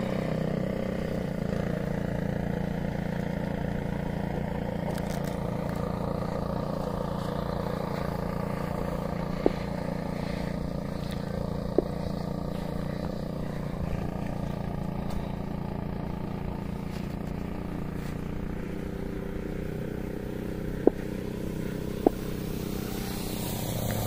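Propeller drone of a 122-inch Seagull Decathlon electric RC airplane in flight, its 28x13 prop driven by a Scorpion 6530 brushless motor: a steady hum at an even pitch, swelling near the end as the plane passes low. Four short sharp clicks break in about halfway and again later.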